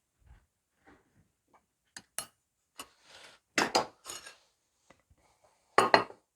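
Scattered metal clinks and clanks, with a few sharp knocks, as steel blades and shop tools are handled; the loudest clatter comes a little past halfway and again near the end.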